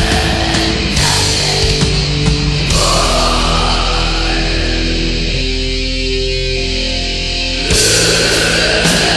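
Heavy metal music: distorted electric guitars and drums playing sustained, pitched chords. Towards the end the cymbals thin out for a couple of seconds, then the full band comes back in with a crash.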